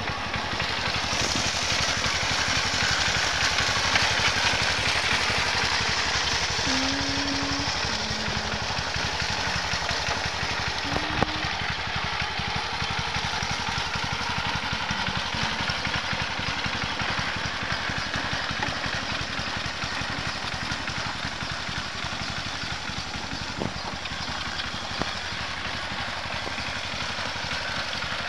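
Tractor engine running steadily while it works a paddy field, smoothing ploughed rice-field mud.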